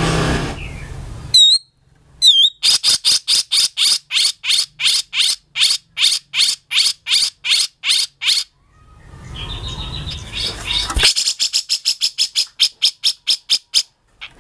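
Cucak jenggot (grey-cheeked bulbul) calling: two short down-slurred notes, then a long run of sharp repeated notes at about three or four a second. After a stretch of rough noise, a faster run of about six notes a second comes near the end.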